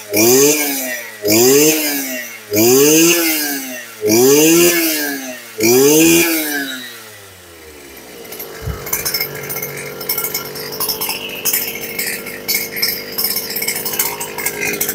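Stihl FS250 brush cutter's two-stroke engine being revved again and again, its pitch climbing and falling back about every second and a half; after about six and a half seconds it drops to a steady idle.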